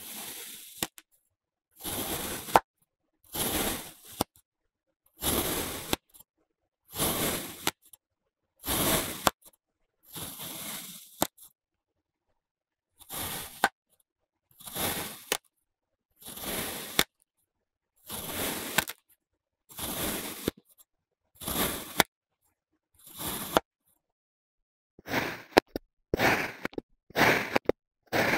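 Kinetic sand being sliced: a regular series of short, crunchy cutting strokes, about one every one and a half to two seconds, with silence between them and a sharp tap after a few. Near the end the strokes come quicker and shorter.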